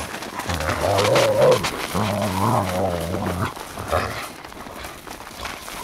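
Large dogs, a borzoi and Irish wolfhounds, growling in play: two long, low, wavering growls in the first three and a half seconds, a short sound at about four seconds, then quieter.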